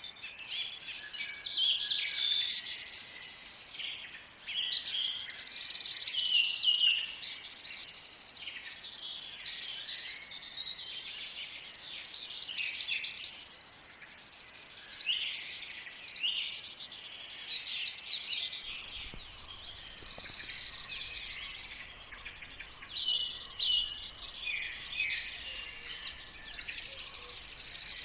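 Several songbirds singing and calling over one another in a morning chorus, with many short chirps and trills overlapping.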